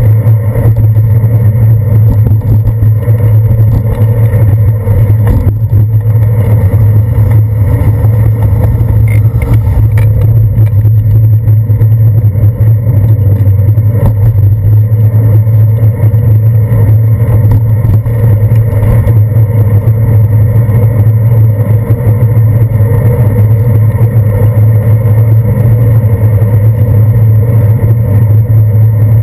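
Steady, loud low rumble picked up by a handlebar-mounted GoPro Hero 2 on a moving bicycle, riding along wet city streets.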